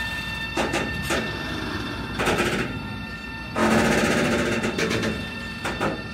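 Freight train rolling through a station, its wheels clattering irregularly over rail joints and points. Steady high squealing tones sound under the clatter and thin out after about two seconds.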